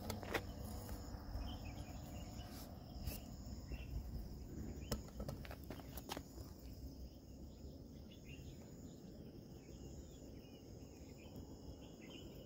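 Insects trilling steadily at a high pitch over a low rumble, with a few faint clicks in the first half.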